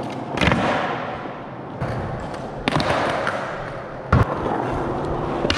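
Skateboard wheels rolling on a concrete floor, broken by several sharp clacks of the board popping, flipping and landing, the loudest about half a second in.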